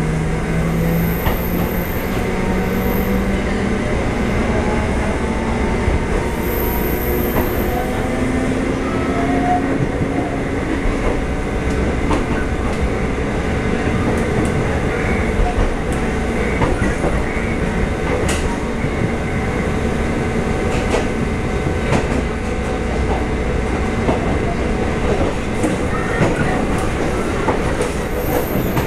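Interior running noise of a TRA EMU400 electric multiple unit: a steady rumble of wheels on rail with irregular clicks over the rail joints, and a faint whine rising in pitch in the first few seconds.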